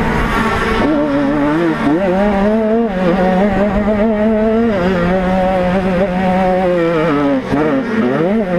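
A 50cc two-stroke motocross engine revving hard, heard from on board: its pitch dips as the throttle is rolled off and climbs again as it is opened, several times, with a deep dip and sharp climb near the end.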